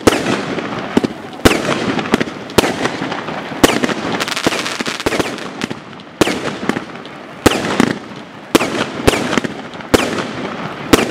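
Aerial fireworks shells bursting in quick succession, a sharp bang roughly every second, with crackling in between.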